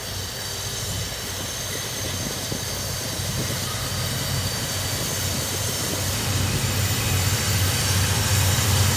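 CSX diesel freight locomotives running as the train approaches: a steady low engine drone that grows steadily louder.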